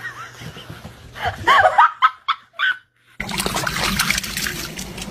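A few short bursts of laughter, then a brief silence. About three seconds in, water splashes steadily as a dog wades through shallow water.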